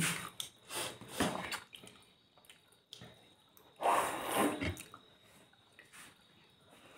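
Eating a steamed pork momo by hand: a bite and wet chewing in two short bursts, in the first second and again about four seconds in, then fainter chewing.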